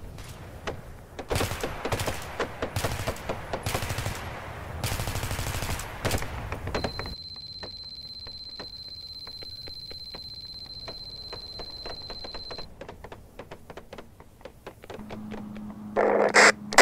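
Sound-effect track of rapid electronic typing clicks, going on through the whole stretch, as text is typed onto the screen. Louder bursts of noise come in the first few seconds, a steady high beep tone runs through the middle, and a loud burst comes just before the end.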